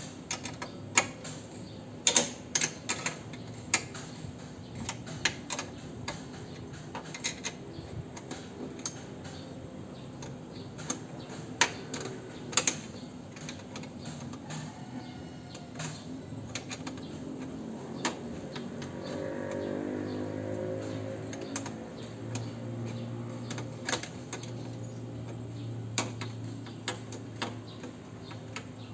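Irregular sharp metallic clicks and clinks of hand tools on a bolt, washer and horn bracket as the horn mounting is fitted and tightened. A low steady hum comes in past the middle.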